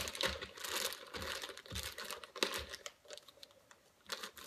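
Plastic bags of soft-plastic bass baits crinkling in irregular bursts as they are handled, with a brief lull about three seconds in.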